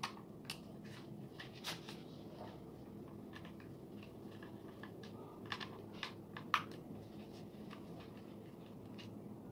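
Scattered light clicks and taps of a small screwdriver working on the plastic body of a quadcopter drone during disassembly, the sharpest few a little past the middle, over a faint steady low hum.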